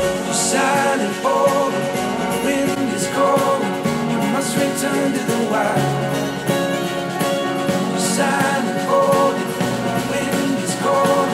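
A song played back through a pair of studio monitors and recorded with a microphone in the room. The Yamaha HS8 monitors play first, then partway through it switches to the PreSonus Eris E8 XT monitors.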